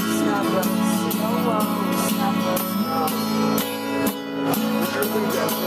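Music with a strummed acoustic guitar and a steady beat.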